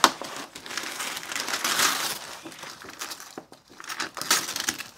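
Packaging rustling and crinkling as items are handled and lifted out of a shipping box. There is a sharp knock right at the start, and louder bursts of crinkling about two seconds in and again near the end.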